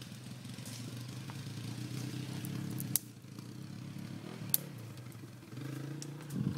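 Honda CRF four-stroke dirt bike engine running steadily, its drone swelling a little then easing and picking up again near the end. Two sharp clicks are heard about three and four and a half seconds in.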